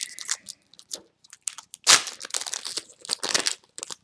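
A trading-card booster pack wrapper is crinkled and torn open by hand, in irregular crackles with the loudest rip about two seconds in.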